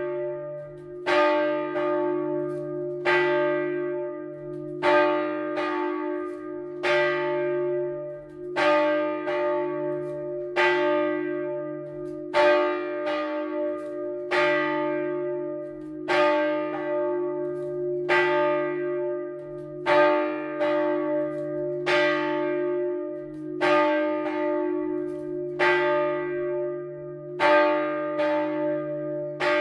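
A single large bronze church bell swung full-circle by an electric motor and rung on its own. Its clapper strikes about once a second, alternating a stronger and a weaker stroke, and the deep hum and strike tones ring on between strokes.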